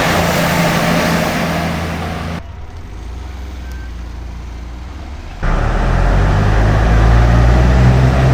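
Vehicle engine noise with a steady low hum, heard in abruptly cut segments: loud at first, quieter from about two and a half seconds in, then loud again from about five seconds in with a deeper engine drone.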